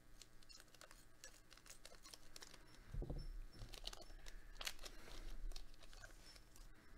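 A foil trading-card booster pack being cut open with scissors and handled, its wrapper crinkling in a run of small crackles. There is a soft low thump about three seconds in.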